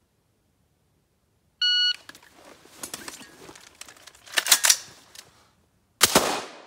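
Shot timer beeps once, briefly, about a second and a half in. Then comes the rustle and clatter of two rifles being pulled from backpack scabbards and shouldered, with a burst of sharp clacks midway. A single rifle shot rings out about six seconds in, with a short echo.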